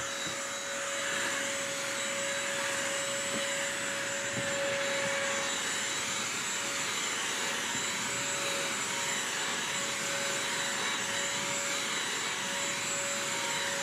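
BISSELL Crosswave multi-surface wet/dry vacuum running steadily with a constant motor whine. It is scrubbing a low-pile rug in its rug setting.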